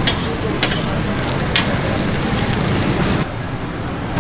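Metal ladle and tea strainer clinking against a steel pot as milk tea is poured and strained, a few sharp clinks in the first two seconds over the steady noise of the stall and street traffic. A little after three seconds the sound drops suddenly to a duller, quieter street hum.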